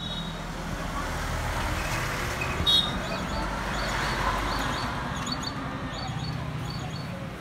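Road traffic going by: a vehicle's noise swells to a peak about four seconds in and then fades. A brief, sharp, high-pitched sound, the loudest moment, comes a little before the peak.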